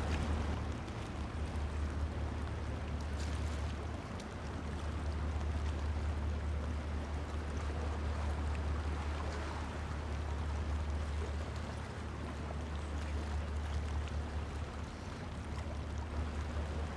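Steady rain hiss with faint scattered drop ticks, over a continuous low rumble.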